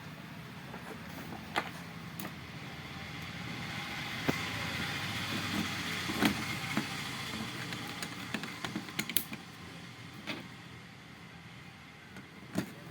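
Steady background traffic noise that swells for a few seconds in the middle and fades again, with scattered light clicks and knocks from the TV's parts and connectors being handled.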